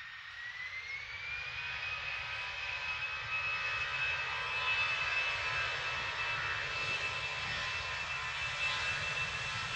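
Airbus A320's twin jet engines spooling up to takeoff thrust: a whine that rises in pitch over the first second or two, then holds steady over a rushing roar that grows louder as the airliner accelerates down the runway toward the listener.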